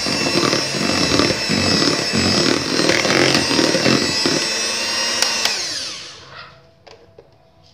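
Electric hand mixer running with a steady high whine as its beaters churn thick cake batter in a plastic bowl. About five and a half seconds in the motor is switched off and winds down with a falling whine.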